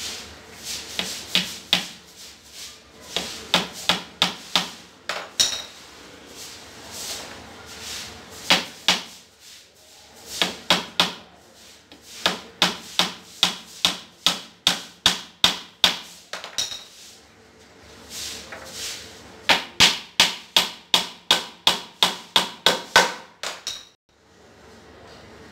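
A hammer striking the laminated wooden top panel of a box in runs of quick, sharp blows, about three a second, with short pauses between the runs.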